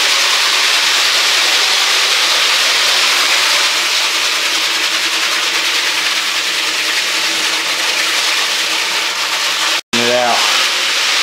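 Single-disc rotary floor machine sanding a concrete floor with coarse 26 to 30 grit abrasives: a loud, steady hissing grind. It cuts off suddenly near the end, and a man's voice follows briefly.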